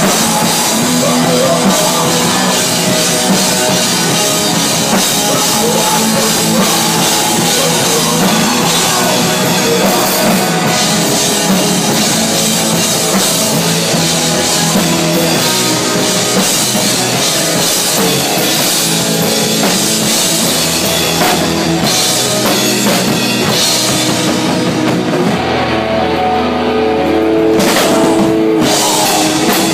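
Live rock band playing loud, close to the stage: electric guitars, bass guitar and a drum kit. The cymbal hiss drops away for a few seconds near the end, then comes back.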